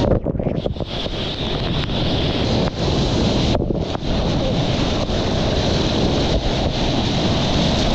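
Broken waves and whitewater churning and splashing right at a surfer's action camera, with wind and water buffeting the microphone. The sound goes briefly muffled twice, near the start and about three and a half seconds in, as the camera dips into the water.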